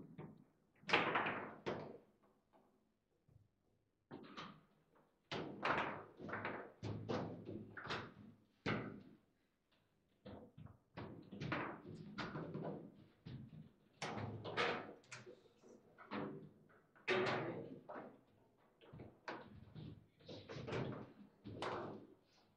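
Foosball table in play: the ball struck and slammed by the rod-mounted figures and banging off the table walls, with rods clacking as they are spun and shifted, in irregular flurries of sharp knocks separated by short lulls.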